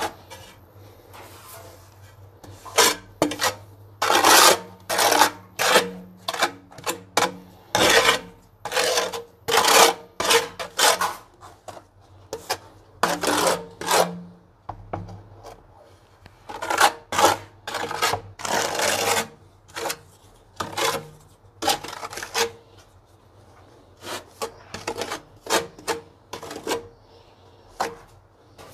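Steel trowel scraping and spreading cement-based tile adhesive across the back of a ceramic tile, in many short rasping strokes that come in clusters with brief pauses.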